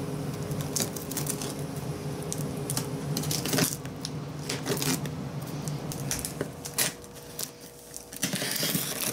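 Hands picking and scraping at packing tape on a cardboard shipping box: scattered clicks, taps and scrapes, then a longer stretch of tape ripping away near the end.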